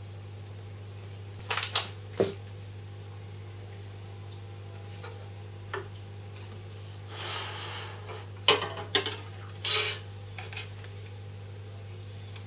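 Scattered sharp clicks and clinks of hard objects being handled, several in quick succession about two seconds in and a cluster more in the second half, with a brief rustle between them. A steady low hum runs underneath.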